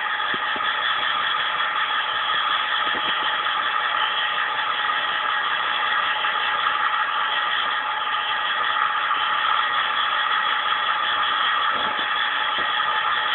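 Bench grinder running steadily: an even whirring hiss with a constant whine.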